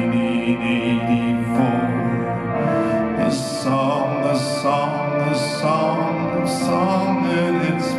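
Slow ballad performed live: a man singing over piano chords and long sustained backing tones.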